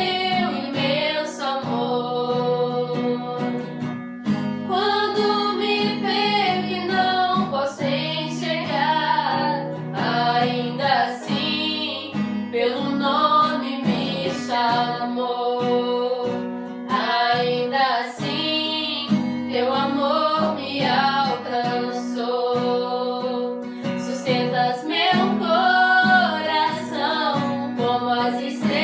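Female vocals singing a song to acoustic guitar accompaniment.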